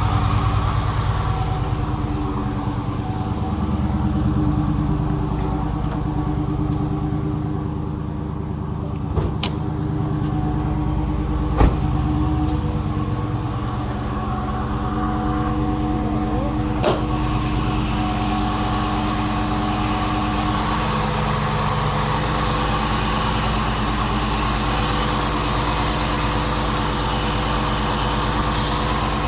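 A 6.4-litre Hemi V8 idling steadily, with the usual Hemi tick and a raspy grinding on top, which the owner suspects is a failing water pump or MDS lifters. Three short sharp clicks come through, the last about two-thirds in, after which the engine sounds brighter and hissier.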